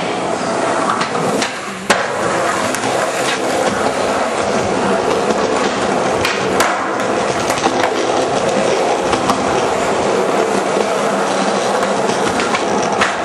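Skateboard wheels rolling steadily on concrete, with sharp board knocks from pops and landings, the loudest about two seconds in.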